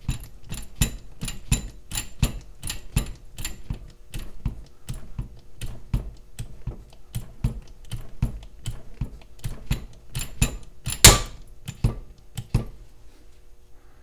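Manually pumped hydraulic bolt cutters working, the pump strokes clicking and clacking in an even rhythm of about two a second as the blades close on a 14 mm hardened steel U-lock shackle. About eleven seconds in comes one much louder sharp crack, the shackle fracturing, followed by two last clicks before the pumping stops.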